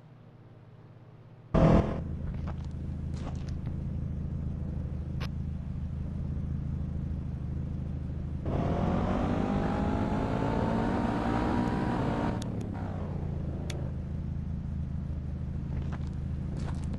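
A motor vehicle's engine running steadily, starting abruptly about a second and a half in. For about four seconds in the middle it grows louder, then settles back, with a few light clicks near the end.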